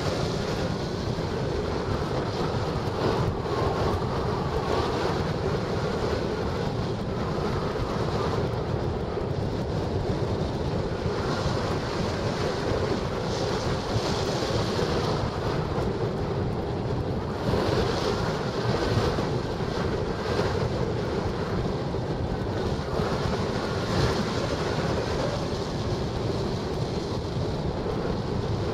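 Airflow rushing over the microphone of a camera mounted on a hang glider in flight: a steady wind rush, with a faint wavering whistle now and then.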